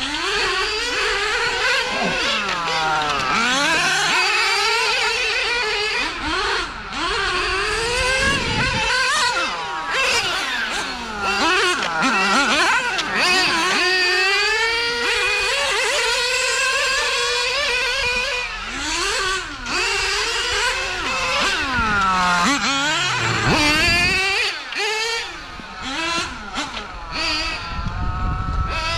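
Two 1/8-scale nitro GT RC cars, a Hot Bodies RGT8 and a Mugen MGT7, running laps. Their small two-stroke nitro engines (XRD SS7 and Rody R21GT) rev up in rising whines on the straights and fall off for the corners, over and over, as they pass close by.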